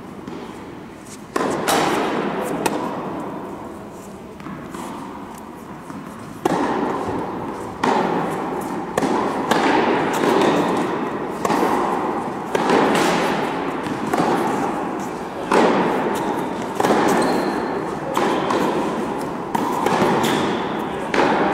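Tennis balls being struck by rackets and bouncing on an indoor hard court, each sharp knock ringing out in the echo of a large hall. The knocks come about once every second or so, most regularly in the second half.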